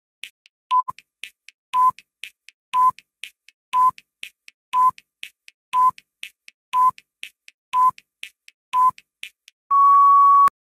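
Quiz countdown-timer sound effect: a short beep once a second with a click between each beep, ending in one longer beep as the timer reaches zero near the end.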